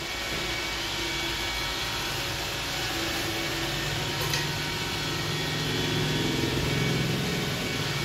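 iRobot Roomba 780 robot vacuum running in spot-cleaning mode, a steady motor hum as it circles on one spot. A brief click about four seconds in, and the hum grows a little louder and deeper for a couple of seconds near the end.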